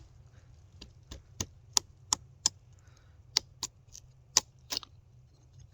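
About a dozen sharp, crisp clicks, coming in small irregular runs a quarter to a third of a second apart, over low room noise.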